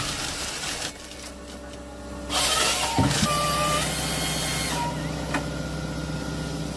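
A forestry machine's engine running steadily, with a loud burst of rushing, cutting noise about two seconds in and a sharp knock in the middle of it.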